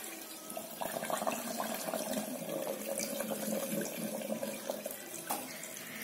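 Cooled boiled water pouring in a steady stream into a large glass jar packed with rose apples, orange slices and sugar, filling it up. It tails off near the end.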